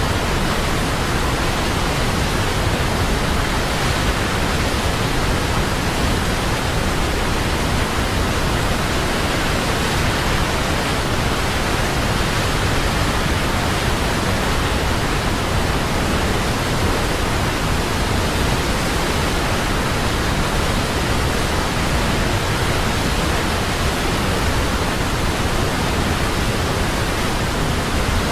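Large waterfall: a steady, loud rush of falling water.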